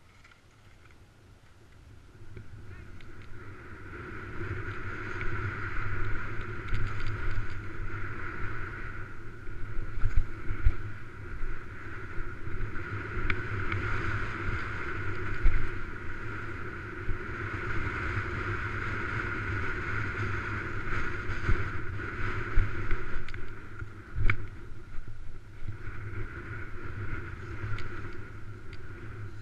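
Skis sliding and scraping over snow with wind rushing across the camera's microphone, rising in about two seconds in as the skier picks up speed and then swelling and easing with the turns. A few sharp knocks stand out along the way.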